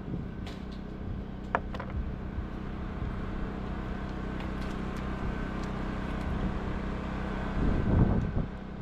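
A steady mechanical hum at a constant pitch, with a few faint clicks and a brief louder low rumble near the end.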